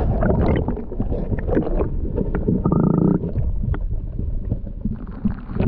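Sound picked up by a camera held underwater in a creek: a dense, muffled low rumble of moving water against the submerged housing, with scattered clicks. A short muffled tone sounds for about half a second near the middle.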